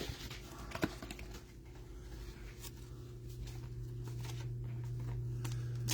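Trading cards being handled and sorted, with light scattered clicks and one sharper click about a second in, over a steady low hum.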